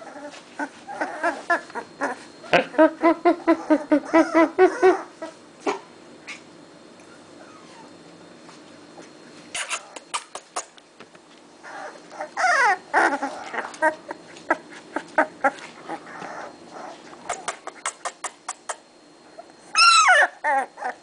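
Young blue-nose pit bull puppies crying: a quick run of short cries, about four a second, in the first few seconds, a single falling cry near the middle, and a louder high, wavering cry near the end. Scattered sharp clicks and rustles run between the cries.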